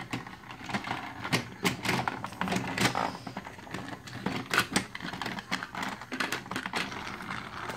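Irregular clicking and clattering of plastic toy trains and track as a plastic Thomas the Tank Engine toy is pushed along the rails among other toy engines and trucks.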